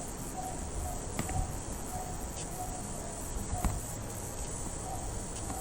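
Steady background hiss with faint short chirps recurring every second or so, and a couple of soft clicks.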